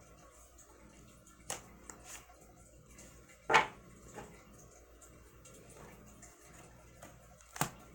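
A tarot deck being shuffled by hand: quiet handling of the cards with a few sharp clacks, the loudest about halfway through and another near the end.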